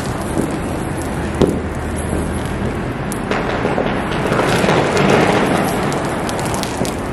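A thin stream of water poured from a small metal pot splashing steadily onto the rooftop floor, with wind rumbling on the microphone. The splashing swells fuller and louder about three seconds in, then eases.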